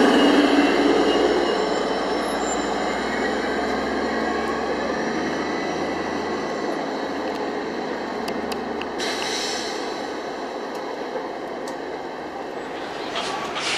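Orion VII hybrid-electric transit bus driving away, its drive giving a whine of several steady tones that slowly fades as the bus recedes. A short hiss comes about nine seconds in.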